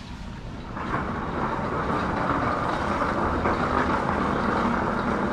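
Steady mechanical running noise that swells in about a second in and then holds.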